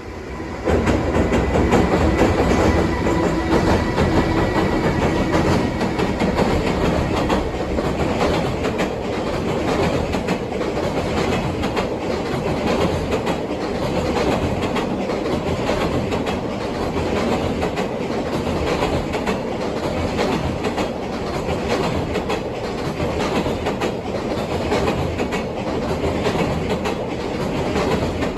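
Long freight train, hauled by a JR Freight EH200 electric locomotive, passing close by for nearly half a minute, its wheels clicking steadily over the rail joints. A steady whine sounds through the first several seconds.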